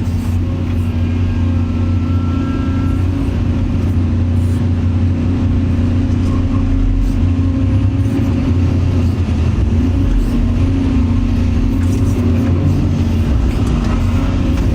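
Excavator's diesel engine running steadily as the machine works, a deep even drone with a higher hum above it.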